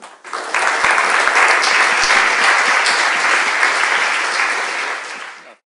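Audience applauding for about five seconds, then cut off abruptly.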